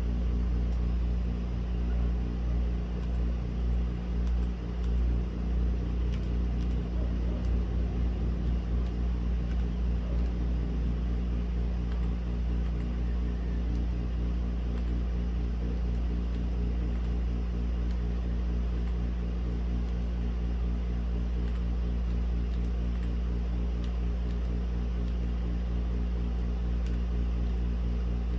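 Steady low background rumble of neighbourhood noise, like distant traffic, wavering and swelling over the first ten seconds, with a few faint scattered clicks.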